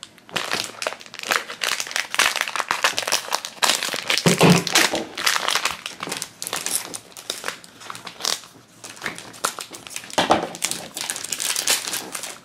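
Crinkling and crackling of a foil-plastic blind-bag wrapper being torn and pulled off a small plastic cheese-wheel toy capsule, in irregular bouts with a short lull about two-thirds of the way through.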